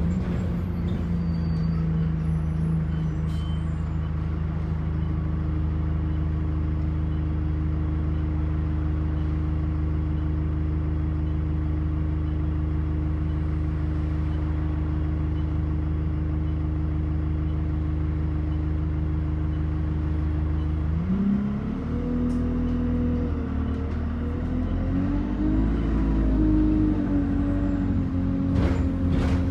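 Bus engine idling steadily, heard from inside the passenger cabin; about 21 seconds in it revs up as the bus pulls away, its pitch rising and stepping up as it gathers speed.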